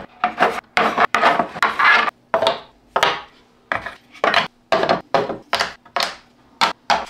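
3D-printed PLA plastic parts being set down and slid across a wooden tabletop: a quick, irregular run of short clacks and scrapes.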